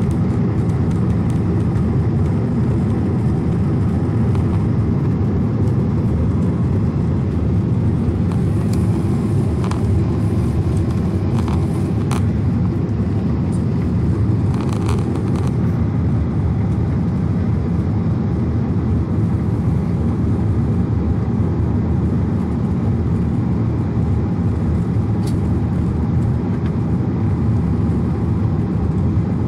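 Steady, low-pitched cabin noise of a jet airliner climbing after take-off: engine and airflow rumble heard through the window seat.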